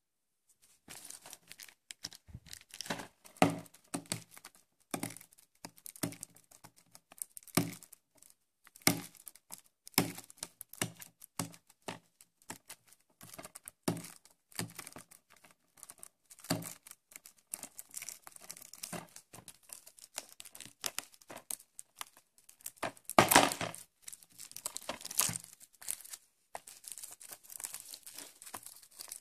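Plastic shrink-wrap on a DVD case crinkling and crackling as hands work it and tear it open, in irregular sharp snaps. The loudest stretch comes about four-fifths of the way in.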